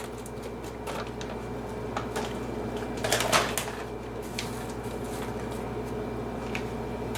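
Light knocks, scrapes and clatter of frozen pasta and vegetables being dumped and spread in a nonstick skillet, with one louder knock about three seconds in, over a steady low hum.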